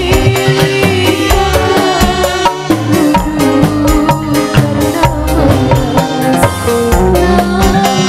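Live burok dangdut band music: drums keep a steady beat under a sustained melody line.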